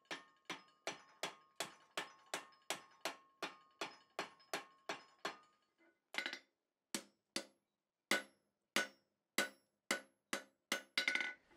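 Hand hammer striking red-hot steel bar stock to work up a corner bend. There is first a steady run of about three blows a second on the bar held in a vise, each with a ringing note. After a short pause come slower blows, about two a second, with the bar over the edge of the anvil.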